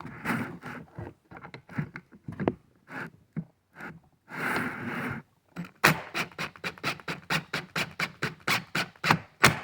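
Hand tool tightening the exhaust cover screws on a chainsaw power head: scraping and handling noise, a brief whir about four seconds in, then a run of sharp, evenly spaced clicks about four or five a second.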